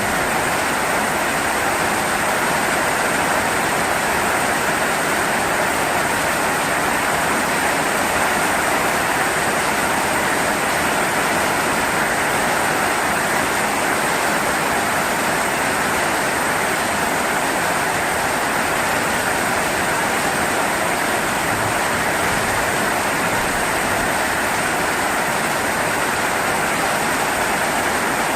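Steady heavy rain falling, an even unbroken hiss with no thunder.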